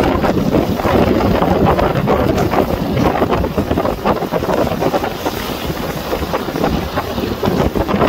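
Strong wind buffeting the microphone over the rush of storm-driven lake waves breaking against a concrete seawall and spilling over it.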